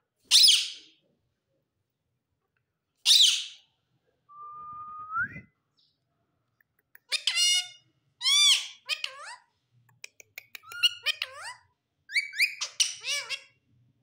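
Male rose-ringed parakeet (Indian ringneck) giving two loud, harsh screeches, then, from about seven seconds in, a quick run of high-pitched, chattering talk: short syllable-like calls that slide up and down in pitch, the bird's mimicked speech.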